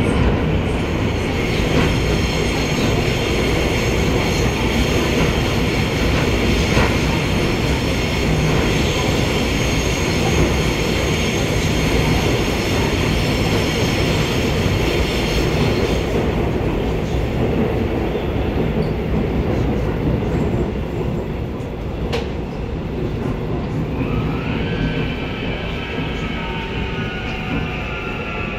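Seoul Subway Line 2 train heard from inside the car: steady rumble of wheels on rail under a high, steady whine from the drive. About 22 seconds in there is a single sharp click. Near the end a group of whining tones glides down in pitch as the train slows for the next station.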